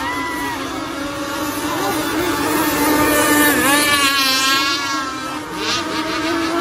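Racing mini speedboat engines running flat out, a steady high engine whine whose pitch wavers rapidly up and down for a second or so in the middle.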